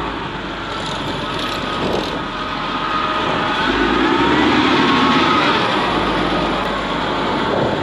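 A vehicle running along a road in drizzle: steady engine and road noise, with a faint pitch that rises and falls and a louder stretch around the middle.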